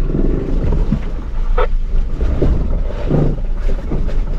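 Ford Bronco driving over a rough, muddy dirt trail, heard from inside the cabin: a steady low engine and road rumble, with a few short knocks and rattles from the body and suspension.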